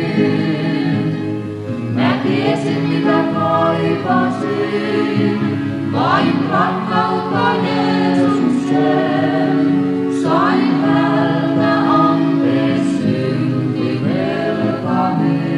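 Youth choir singing a Finnish Christian song, holding long chords, with a new phrase beginning about every four seconds.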